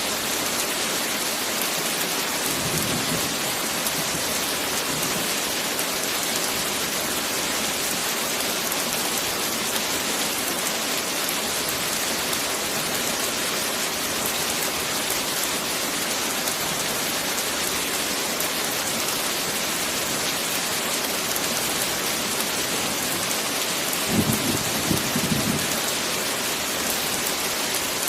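Heavy rain falling steadily, with a short low rumble of thunder near the end and a fainter one about three seconds in.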